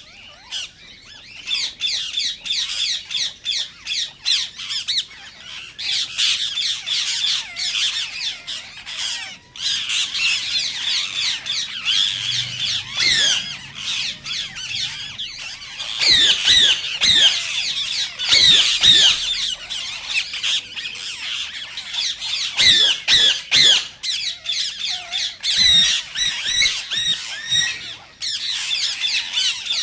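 Green Indian ringneck parakeet calling: a continuous run of shrill squawks and chattering whistled notes, with the loudest sharp calls coming about halfway through and again in the later part.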